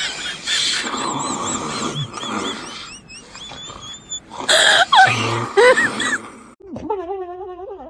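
A person snoring noisily, the breaths laced with rapid high squeaky whistles, then a louder rasping snore about four and a half seconds in. Near the end it turns into a drawn-out, wavering moan.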